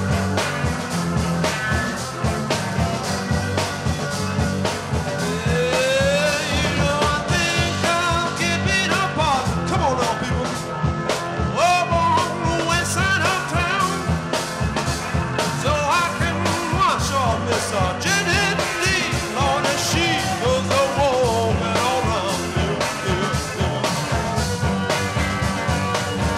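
Late-1960s rock band record playing an instrumental passage: a drum kit and bass keep a steady beat under a lead instrument playing sliding, bending notes.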